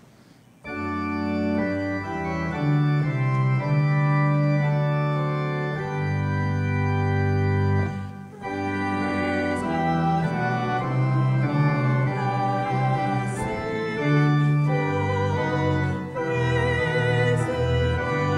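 Organ music: sustained chords entering about a second in, a brief break around eight seconds, then carrying on with a wavering melody line over the chords.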